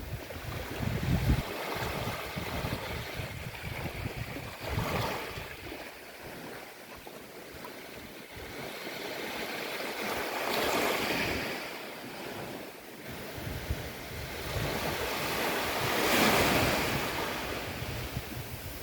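Ocean waves breaking and washing on a beach, swelling and easing in surges every five or so seconds, the loudest near the end.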